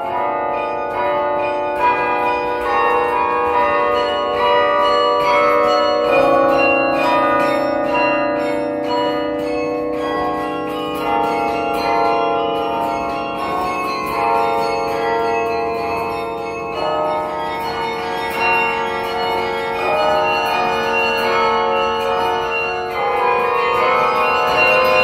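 The 54-bell Yale Memorial Carillon played from its baton keyboard: quick runs of higher bells struck over lower bells that ring on beneath them.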